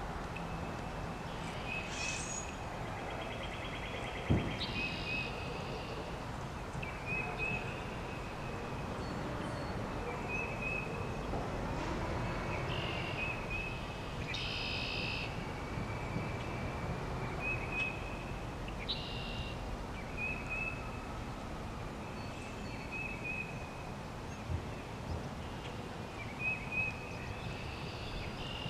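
Outdoor pond ambience of small birds singing: one bird repeats a short high call every second or two, with a few louder chirps from others, over a steady background hiss. A single low thump sounds about four seconds in.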